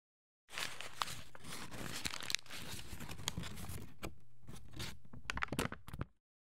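Dense crackling, rustling noise full of small sharp clicks, like paper being crumpled or torn, starting about half a second in and cutting off abruptly near the end.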